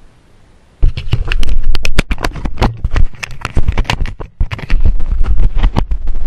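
Handling noise from the camera being gripped and moved: a sudden burst of loud scraping, rubbing and rapid clicks against the microphone starting about a second in, with a heavy low rumble.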